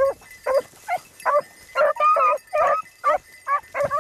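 Beagles barking and yipping in a quick run of short, high barks, about two or three a second, some a little longer and drawn out.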